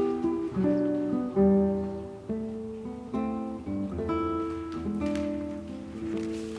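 Background music: an acoustic guitar picking a run of notes, each plucked and fading, with several ringing together.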